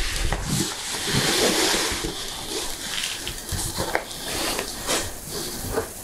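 A large sheet of thin cardboard rustling and flexing as it is handled, with a few light knocks.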